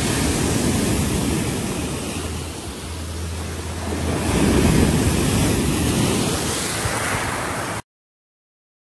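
Small sea waves washing up a pebble beach and foaming over the stones, surging twice. The sound cuts off abruptly near the end.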